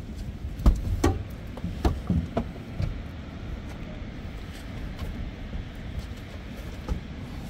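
A few knocks and thumps in the first three seconds as a bull redfish is handled out of a landing net on a fibreglass boat deck, over a steady low rumble.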